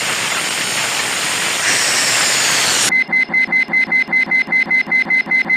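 Animated sound effects: a steady rushing hiss for about three seconds. It then switches abruptly to a fast, even pulsing beep, about five a second.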